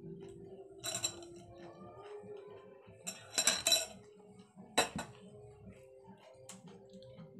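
Dishes and cutlery clinking as food is taken from the plate: one clink about a second in, a quick cluster of clinks around three and a half seconds, and one more near five seconds, over a faint steady hum.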